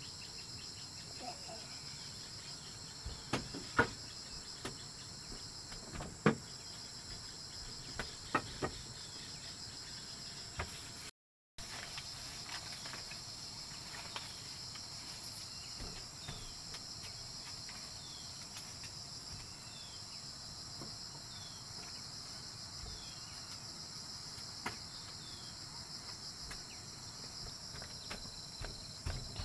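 Insects chirring steadily in a high, pulsing drone, with a few sharp knocks in the first ten seconds and a run of short falling chirps about once a second in the middle. The sound drops out briefly just after ten seconds.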